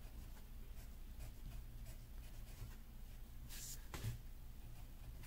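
Faint scratching of a drawing tool on paper as initials are written, in short strokes, with one louder stroke about three and a half seconds in.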